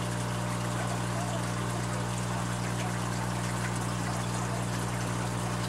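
Aquarium wet/dry filtration running: steady trickling water with a constant low pump hum.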